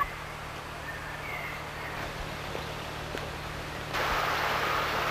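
Faint outdoor ambience under steady camcorder hum and hiss. The hiss gets louder about four seconds in.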